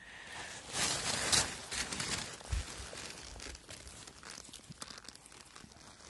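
Rustling and crackling of wet forest undergrowth as someone moves through it, loudest about a second in, then fading.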